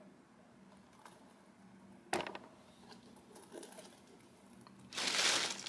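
Handling noise from a leather boot and its packaging: a sharp knock about two seconds in, a few soft rustles, and a short paper rustle near the end.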